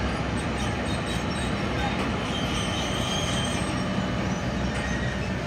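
Steady machinery noise on an airport apron beside a parked airliner, a continuous low rumble with a faint high whine about halfway through.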